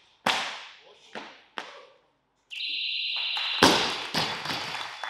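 A steady electronic beep about a second long, the referees' down signal, then a barbell loaded with bumper plates dropped onto the wooden lifting platform with a loud crash, bouncing and rattling as it settles. Three short sharp sounds ring out in the hall before the beep.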